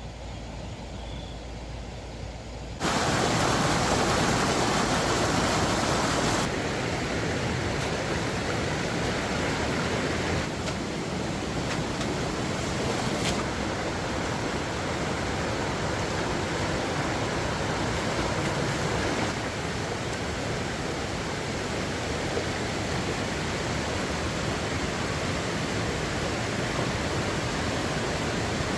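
Steady rush of flowing water, an even hiss with no pauses. It jumps louder about three seconds in and eases slightly a few seconds later.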